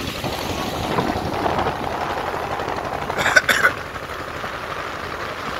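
A cargo boat's engine runs steadily under way, with wind and water noise. About three seconds in there is a brief, louder burst.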